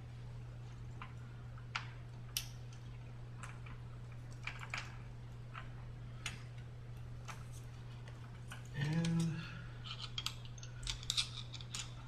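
Light, scattered metallic clicks and rattles of a roller chain being handled and worked free by hand: the step chain of a Schwinn SC916 stepper coming off after its master link has been opened. The clicks grow busier near the end, with a brief pitched sound about nine seconds in, over a steady low hum.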